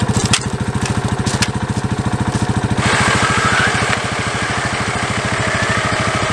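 Small gasoline engine running steadily with an even putter. About three seconds in, a higher hiss and a faint whine join it. Two sharp knocks in the first second and a half fit the spade striking gravel.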